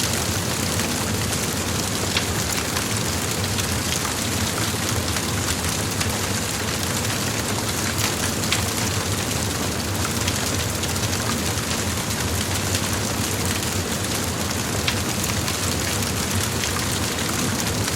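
Large fire blazing: a steady, dense rushing noise with scattered sharp crackles and pops.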